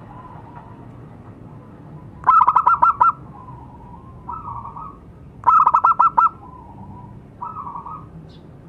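Zebra dove (perkutut) singing: two phrases, each a quick run of about seven loud staccato coos followed by softer trailing coos.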